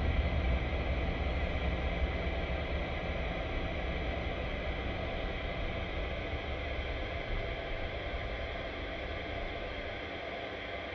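Steady white-noise hiss over a deep low rumble, slowly fading: a white noise machine running in a dark bedroom.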